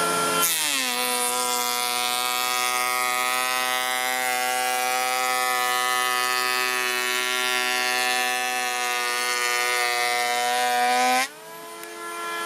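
POPOMAN TECCPO 18 V cordless planer cutting a 1.5 mm pass in melamine-faced chipboard: the motor's steady whine drops in pitch about half a second in as the blades bite and holds there under load. Near the end its pitch rises again and the sound gets much quieter as the planer leaves the cut and runs free.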